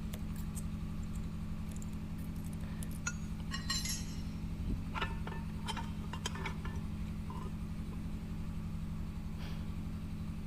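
Scattered metallic clinks and taps as a cylinder liner is pulled out of a Scania diesel engine block with hand tools, over a steady low hum.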